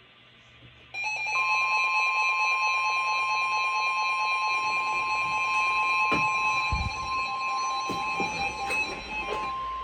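Emergency alert tones from a weather radio broadcast: a steady warning alarm tone near 1 kHz (NOAA Weather Radio's 1050 Hz alert), overlaid with another set of steady alert tones, starting abruptly about a second in and stopping near the end. A few low knocks sound midway.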